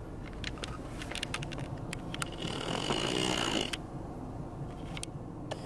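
Low rumble inside a car, with scattered light clicks and rattles in the first half and a brief rushing hiss about two and a half seconds in.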